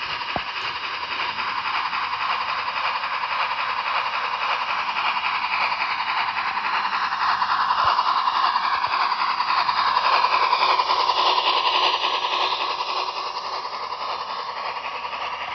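Model steam locomotive running along the layout track, making a steady hissing running noise, loudest around the middle.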